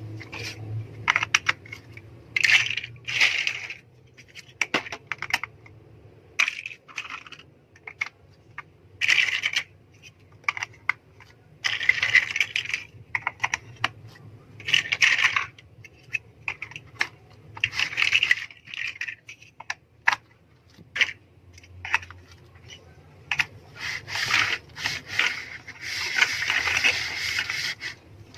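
Plastic LEGO bricks clicking and clattering as pieces are handled and pressed together: irregular sharp clicks and short rattling clusters, with a longer stretch of rattling near the end.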